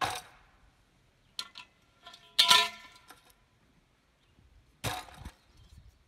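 A few sharp knocks and metallic clanks, the loudest about two and a half seconds in, ringing briefly with a bell-like tone.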